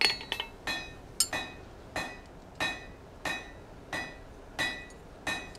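Steel hammer blows on an anvil: about nine evenly spaced strikes, roughly three every two seconds, each followed by a short metallic ring.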